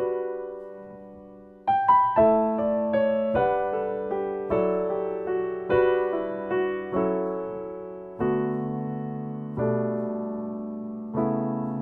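Steinway & Sons grand piano played slowly: chords and a melody line, each note struck and left to ring and fade, with lower bass notes coming in about eight seconds in.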